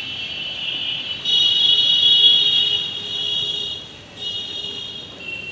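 A shrill, steady buzz that swells up about a second in, holds for a couple of seconds, drops away, then returns briefly before fading near the end.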